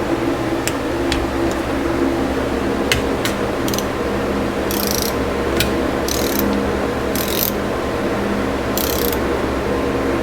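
Ratcheting torque wrench working an engine's case bolts: about four short ratchet bursts and several single sharp clicks. A steady low hum runs underneath.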